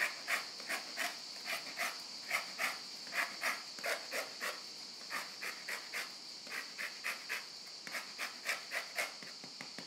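Lemon rind rasped against a flat handheld metal zester grater in quick repeated strokes, about three a second, as the zest is grated off.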